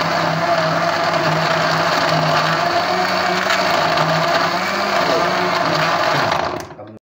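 Electric countertop blender running steadily, its motor churning a milky fruit smoothie with crushed ice; the motor cuts off near the end.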